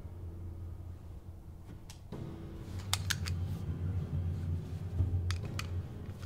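Sharp mechanical clicks from a small handheld device being handled: one about two seconds in, a quick run of three about three seconds in, and two more after five seconds, over a steady low hum.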